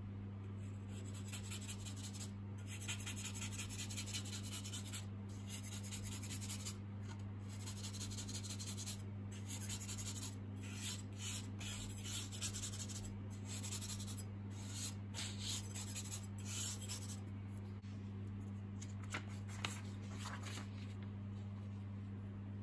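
Rapid back-and-forth scratchy rubbing on a sheet of thin Japanese paper as a print is cleaned, in runs of a second or two with short pauses, over a steady low hum.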